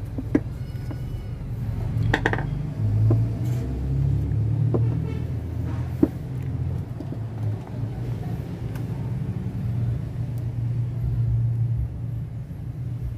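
A steady low rumble throughout, with a few light clicks and taps as the steering rack housing and its rubber bellows boot are handled and the boot is tied on.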